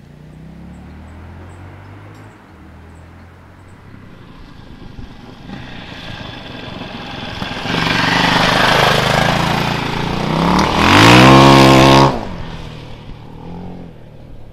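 KTM LC4 640 single-cylinder four-stroke engine through its stock exhaust, growing louder as the motorcycle approaches, then revving up hard with a steeply climbing pitch as it accelerates past. The sound drops off sharply about twelve seconds in and fades as the bike rides away.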